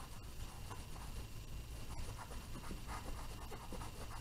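Cotton swab rubbing and scratching faintly over wet acrylic paint on a canvas, softening the paint, over a low steady hum.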